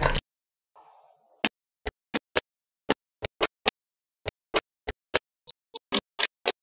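Small metal magnetic balls clicking as blocks of them snap onto a grid of balls: a run of sharp, separate clicks, two to four a second, starting about a second and a half in, after a short rattle at the very start.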